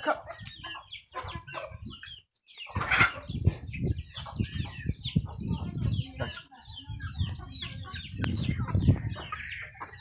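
A flock of native Indian country chickens clucking and chirping in many short calls, over low rustling and thuds. There is a brief near-silent gap at about two seconds and a sharp click at about eight seconds.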